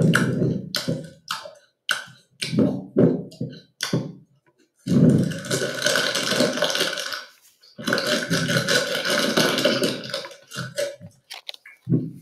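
A voice making exaggerated, raspy comic sounds: a string of short choppy bursts, then two long rasping sounds of about two and a half seconds each, then a few more short bursts near the end.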